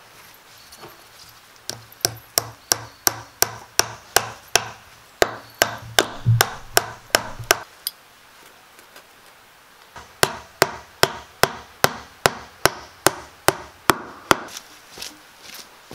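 Hammer driving nails through a small metal bracket into a wooden door sill: quick, even blows, about four a second. The blows come in two runs with a pause of a couple of seconds between them.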